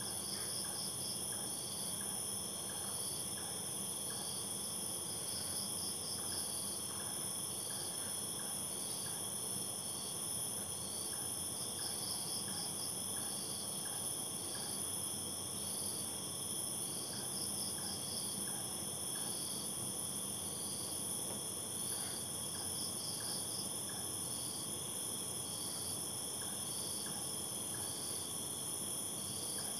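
A night chorus of crickets: a steady high-pitched drone, with a short chirp about once a second and a quick trill every few seconds.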